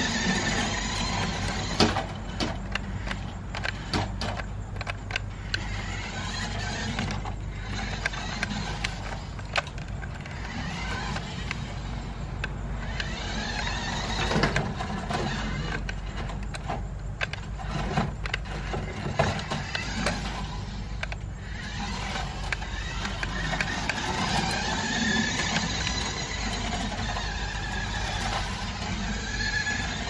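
Electric drive of a 1:14 scale toy-grade RC monster truck whining, rising and falling in pitch as it speeds up and slows, with its tires running over wooden deck boards and scattered sharp knocks.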